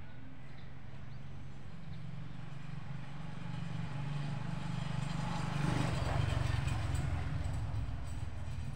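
Low engine hum of a passing motor vehicle, growing louder to a peak about six seconds in and then easing off.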